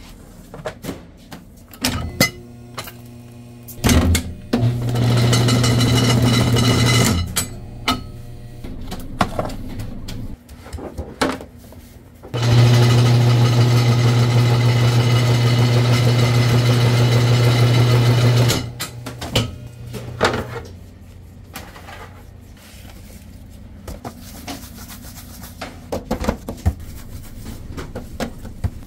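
Dough divider-rounder running in two steady motor hums of a few seconds each, about four seconds in and again from about twelve to eighteen seconds, as it divides and rounds a disc of dough. Clanks and knocks of the dough plate and trays being handled come between and after the runs.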